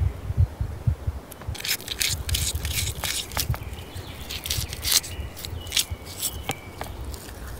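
Knife blade scraping the scales off a whole carp on a wooden board: a run of quick, irregular scraping strokes starting a little over a second in. A low rumble sits underneath, strongest at the start.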